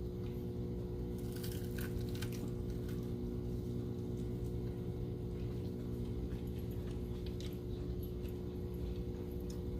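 A person biting and chewing a barbecued pork rib, with a few soft mouth clicks and crunches starting about a second in. Underneath runs a steady low electrical hum.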